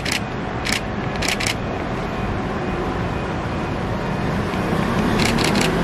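Approaching passenger train, its steady rumble growing louder toward the end, with a few short, high hissing bursts scattered through it.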